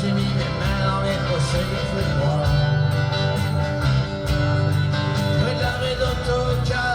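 Music: an instrumental passage of a song, led by guitar, with no vocals yet.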